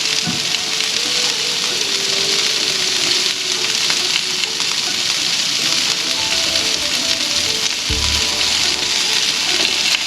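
Vegetable stir-fry sizzling steadily in a hot pan, just after a splash of balsamic vinegar.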